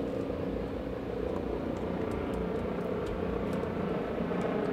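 Steady low drone of a distant engine, holding level throughout.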